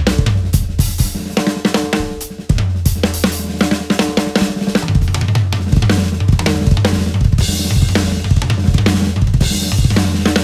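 Acoustic drum kit played in a fast solo: dense snare and tom strokes over bass drum kicks. The playing dips briefly about two and a half seconds in and comes back with a hard accent, and a cymbal wash rings out about three quarters of the way through.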